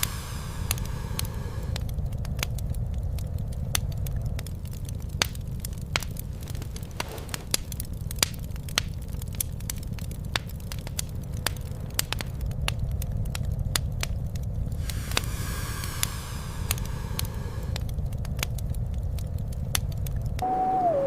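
Wood fire crackling with frequent sharp pops over a steady low rumble. In the last moment a falling, whistling tone begins.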